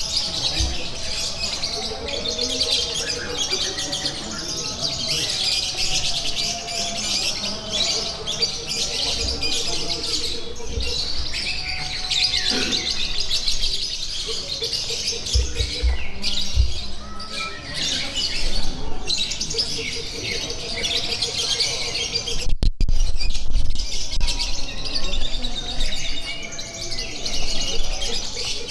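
Many caged contest songbirds, lovebirds among them, chirping and chattering at once in a dense, unbroken chorus, with a rapid rattling trill coming and going beneath it.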